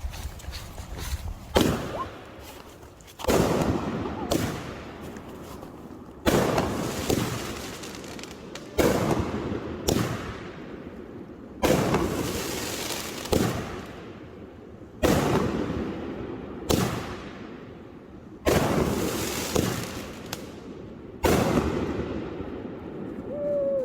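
Fireworks going off: about a dozen sharp bangs at uneven intervals, one every one to three seconds, each followed by a fading rush of noise.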